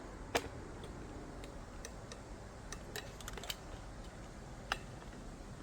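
Sharp clicks and light ticks as a folding pocketknife with a clip-on pocket clip is handled and slipped into a trouser pocket. There is one loud click about half a second in, a quick run of lighter ticks past the middle, and another click near the end.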